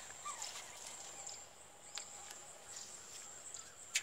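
Faint rural outdoor ambience: a steady high-pitched insect drone, with scattered light clicks and one short falling chirp about a third of a second in.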